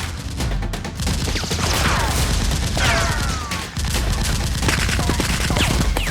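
Rapid gunfire sound effects, a dense volley of shots without a break. Several whistles drop quickly in pitch across it, and a low steady throb runs underneath.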